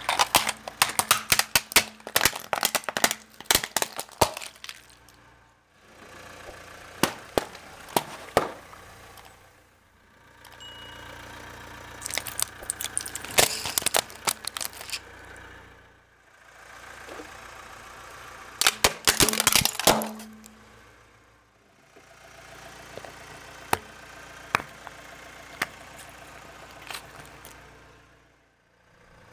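Objects crushed one after another under a car tyre, with a steady engine idle beneath: five bursts of sharp cracking and snapping with short breaks between them. At the start a plastic toy dump truck cracks apart, and about halfway a bundle of coloured pencils snaps and splinters.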